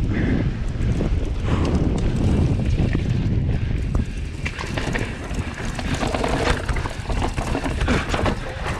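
Transition Scout mountain bike descending a dirt trail: a steady rumble of wind and tyres on the ground, with many quick rattles and knocks from the bike over bumps, growing busier about halfway through.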